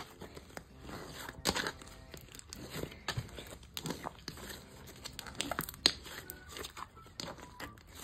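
Slime being kneaded and squeezed by hand: squishing with irregular sharp clicks and crackles as trapped air bubbles pop, the loudest about a second and a half in and again near six seconds.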